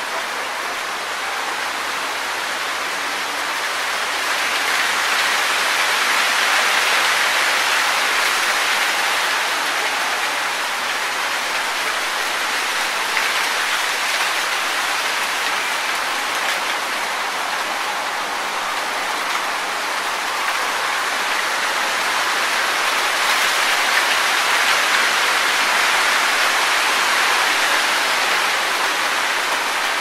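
Wind rustling through tree leaves: a steady hiss that swells in slow gusts, rising about four seconds in and again in the last third.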